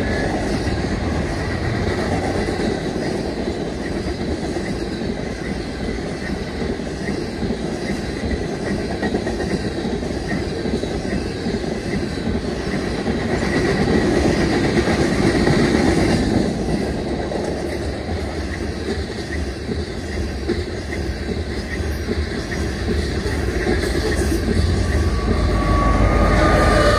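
Freight train cars rolling past on the rails in a continuous steady rush, with a faint high whine at times. Near the end the rear distributed-power BNSF diesel locomotives pass, adding a heavier low rumble.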